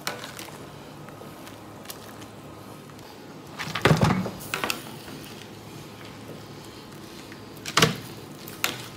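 Blanched pork bones tipped from a wire strainer into a stainless steel tray, clattering and thudding on the metal in a burst about four seconds in and twice more near the end, over a steady low hum.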